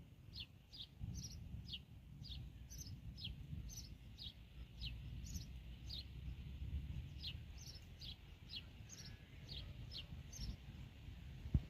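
Sparrows chirping over and over, about two short high chirps a second, many of them quick downward sweeps. A steady low rumble sits underneath, and a short thump comes just before the end.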